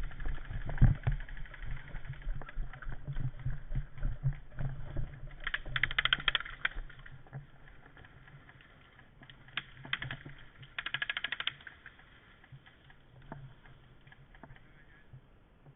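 Airsoft rifle firing. There are two rapid full-auto bursts of clicking shots, one about six seconds in and one about eleven seconds in, with scattered single clicks and knocks before them.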